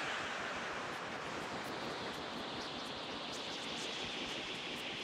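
Aparillo software synthesizer by Sugar Bytes on an iPad, playing its 'Quark Futura MA' preset as a steady hissing wash of noise. The bright part of the hiss slowly rises in pitch, and faint high crackles join in from about a second and a half in.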